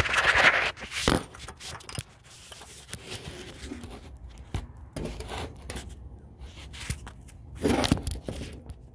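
Close handling noise of scraping, rustling and clicks, with short hisses from an aerosol can of carb cleaner being sprayed, at the start and again near the end.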